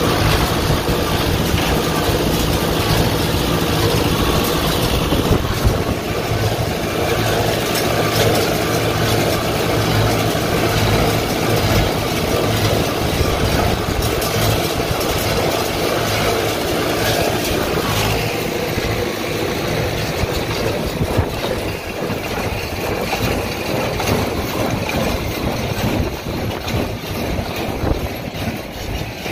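Tractor engine running steadily. About two-thirds of the way through, its even note gives way to a rougher sound.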